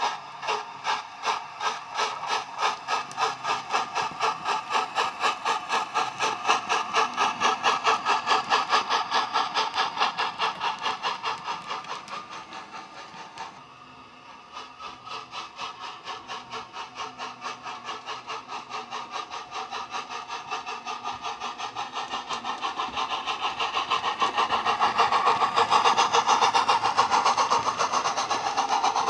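Steam-locomotive sound from the DCC sound decoder in a Hornby rebuilt W1 model locomotive, playing the SWD A4 sound file through a bass-enhanced speaker. Evenly spaced exhaust chuffs quicken as the model pulls away, fade briefly about halfway through, then come back louder as the train runs close past.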